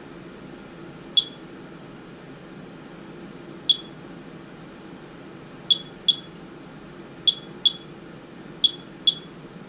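Monitor 4 Geiger counter chirping once for each detected count: eight short high beeps at irregular intervals, some in quick pairs. It is counting a radioactive rain sample at about 40 counts a minute, a little over twice as hot as the background.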